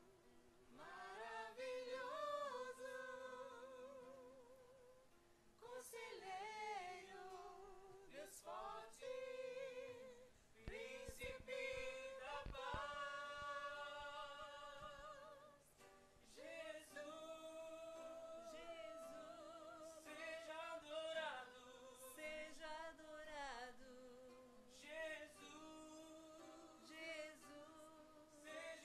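People singing a song together, with long held notes and vibrato and short pauses between lines.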